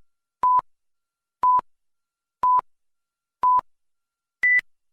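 Five short electronic beeps, one a second, with dead silence between them: four at the same pitch, then a fifth an octave higher.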